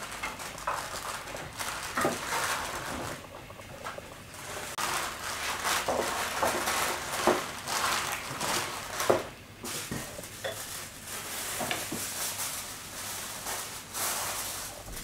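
Baking paper rustling and crinkling as hands fold it over and press it down in a pan, with irregular sharp crackles. Near the end, aluminium foil crinkles as it is pulled from the roll and laid over the paper.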